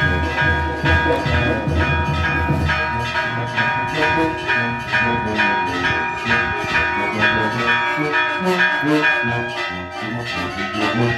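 Church bells ringing in a rapid festive peal, struck several times a second over steady ringing tones. Music with a heavy bass runs under it and stops about three seconds in.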